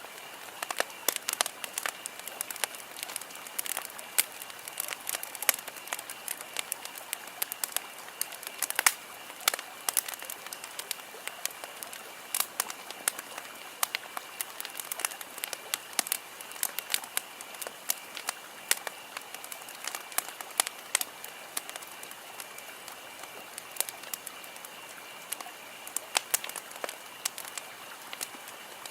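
Campfire crackling: frequent irregular sharp pops and snaps over a steady hiss, with a faint steady high-pitched tone underneath.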